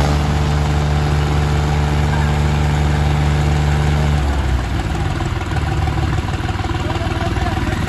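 Diesel tractor engines held at full revs under heavy pulling load, a steady drone that breaks up about four seconds in into rougher, noisier running.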